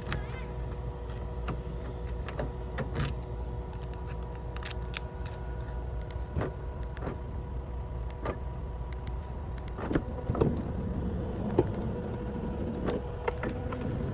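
Vehicle engine running steadily, with scattered clicks and light knocks over it.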